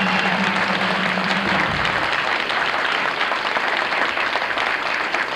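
Audience applauding with many hands. A held low note from the song's accompaniment dies away under the clapping in the first two seconds.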